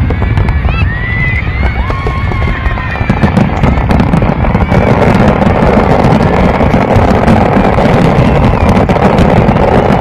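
Fireworks display: many sharp crackles and pops with a few whistling glides in the first few seconds. A dense, steady noise takes over about halfway through.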